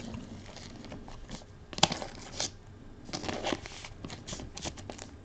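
Trading cards being handled: scattered soft clicks and short rustling scrapes, with a sharper click about two seconds in.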